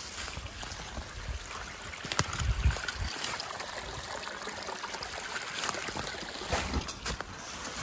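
Water trickling and running, like a small forest stream, with scattered clicks and a few low thumps between two and three seconds in.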